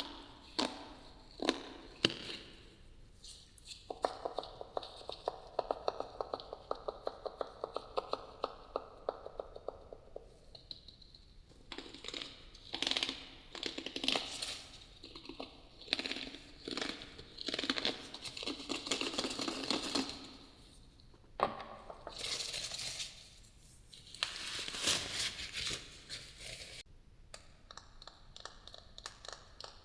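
Close-miked ASMR trigger sounds: a few sharp taps, then a long stretch of fast, even tapping or scratching, then several rustling, crinkly swells, and light clicks near the end.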